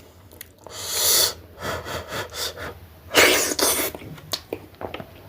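A person eating, with two loud breathy hisses, about a second in and again past three seconds, and softer mouth sounds between.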